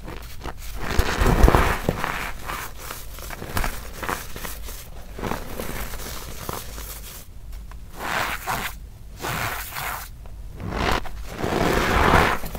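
Hands squeezing and crushing packed cornstarch and reformed gym chalk mixed with baking soda: repeated squeaky crunching and crumbling of the powder. The strokes are loudest about a second in and near the end.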